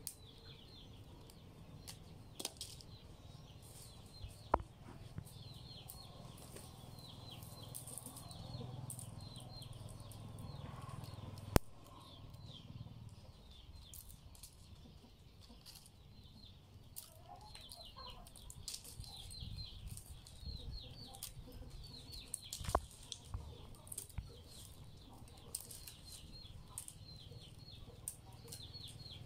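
Rattan strands rustling and clicking as a basket is woven by hand, with a few sharp snaps or taps, the loudest near the middle. Faint high chirping runs underneath.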